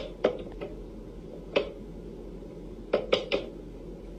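Wooden whack-a-mole cat toy clacking as a cat bats its paw-shaped levers and toy mice pop up through the holes: sharp wooden clicks, some in quick runs of two or three.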